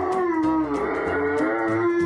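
German Shepherd howling along with music: one long howl that dips and rises in pitch a few times, over a guitar backing track.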